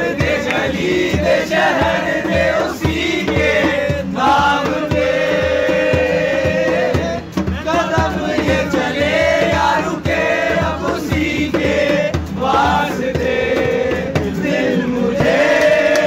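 A group of young men singing a song together in chorus, accompanied by an acoustic guitar, with a steady beat running through.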